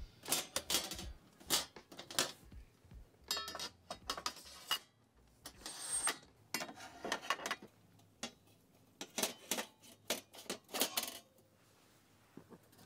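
Irregular clicks, knocks and light clatter of camping gear being handled and fitted together, coming in quick clusters and stopping about a second before the end.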